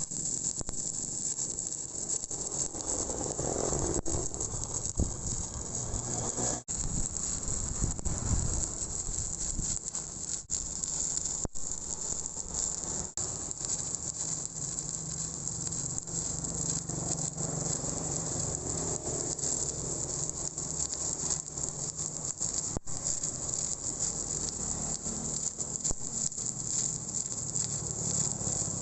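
Stick-welding arc on pipe, crackling and sizzling steadily as an E7018 electrode burns, with a few momentary breaks. It dies away near the end, as the arc is broken.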